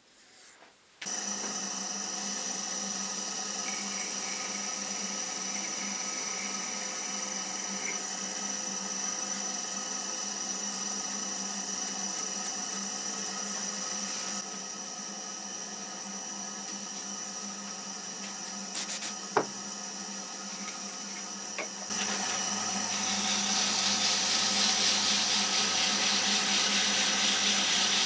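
Small wood lathe starting about a second in and running steadily with a pen blank spinning in a collet chuck, a steady motor whine. A few sharp clicks come just past the middle, and near the end an abrasive sheet pressed against the spinning blank adds a louder sanding hiss.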